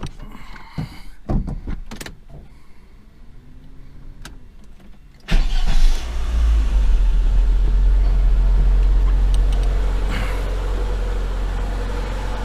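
A few scattered clicks and knocks, then a Daewoo Sens petrol engine starts about five seconds in, flares briefly and settles into a steady idle. It idles evenly, without the connecting-rod knock the car came back under warranty for, which has not yet shown itself.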